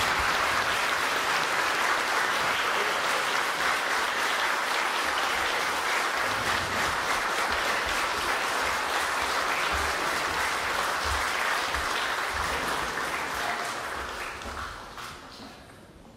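Audience applauding steadily, the clapping fading away over the last two seconds or so.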